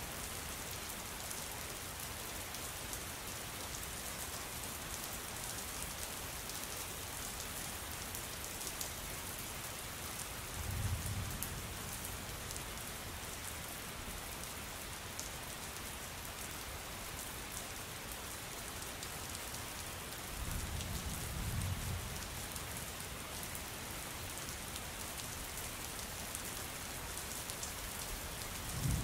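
Steady rain falling, a dense patter of drops, with three brief low rumbles spaced about ten seconds apart, the last near the end.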